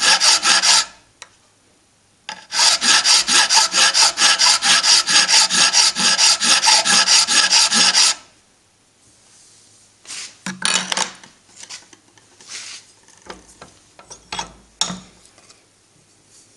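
Hand file rasping across the edge of a cast aluminium-alloy engine part clamped in a bench vise, in quick even strokes about three or four a second, with a short break near the start. The filing stops about halfway through, followed by a few scattered light clicks and knocks.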